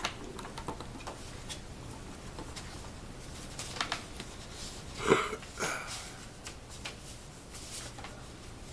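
Light clicks and taps of wooden parts being handled as a mandolin neck is test-fitted into the body's dovetail joint, with one louder knock about five seconds in.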